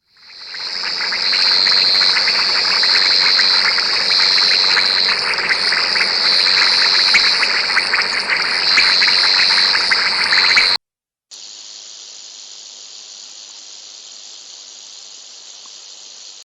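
Loud, steady high-pitched insect buzzing that swells and dips slightly. It cuts off abruptly about eleven seconds in, and a quieter steady hiss follows.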